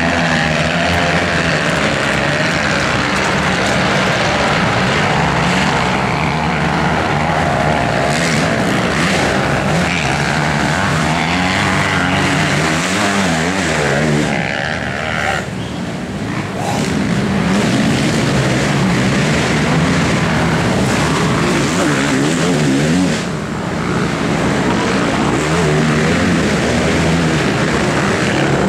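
Several off-road motorcycle engines revving hard, their pitch rising and falling constantly as they pull up a steep muddy climb. The sound eases off briefly about halfway through, then picks up again.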